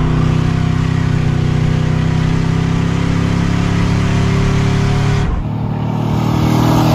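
Twin-turbocharged V8 of a C5 Corvette running at a steady speed under way, its crankcase filled with diesel fuel instead of engine oil. About five seconds in the sound cuts abruptly to a fainter engine.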